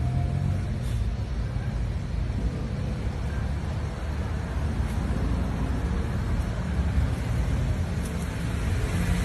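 Steady road traffic noise: a continuous low rumble with a noise haze over it and no distinct events.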